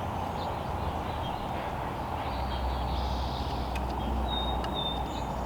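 Steady outdoor background noise with a low hum. A short, thin, high chirp comes about four seconds in.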